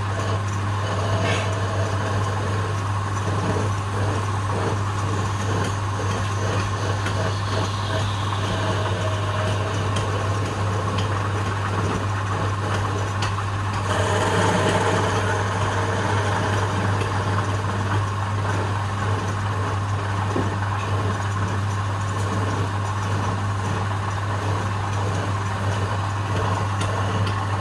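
Wood lathe's electric motor running steadily with a low hum, spinning a wooden spindle held under a bare hand. It gets a little louder for a couple of seconds about halfway through.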